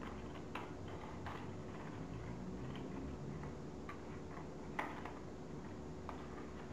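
Folded paper origami units being pressed and tucked into one another by hand: scattered short paper clicks and crinkles, the sharpest about five seconds in, over a faint steady hum.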